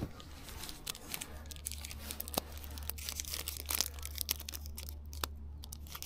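Wrapper of a Kvikk Lunsj chocolate bar being torn open and peeled back by hand: irregular crinkling and tearing crackles, over a steady low hum.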